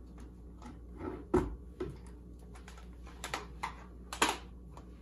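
Irregular light clicks and knocks of kitchen things being handled on a countertop while a blender jar is set on its base, the sharpest about a second and a half in and two more near the end.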